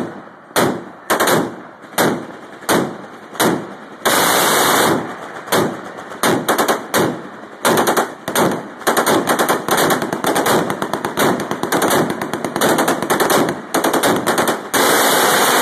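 Shipboard guns firing out to sea. Single shots come about every half second for the first few seconds, then a continuous burst about four seconds in, followed by rapid, overlapping automatic fire and another continuous burst near the end.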